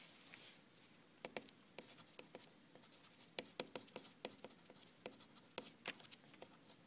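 Pencil writing on graph paper: a run of short scratching strokes and light taps, starting about a second in.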